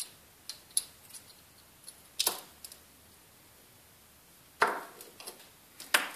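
Small hard clicks and taps as a dental curing light's bent light guide and its small metal and plastic parts are handled and set down on a plastic sheet. The clicks are scattered, with louder knocks about two seconds in, about four and a half seconds in and near the end.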